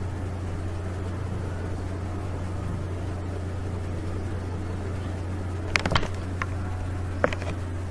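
A steady low hum of background noise, with a few short clicks about six seconds in and one more a second later.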